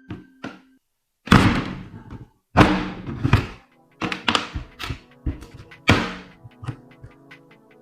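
Three heavy thunks about a second apart, then a quicker run of lighter knocks, over background music.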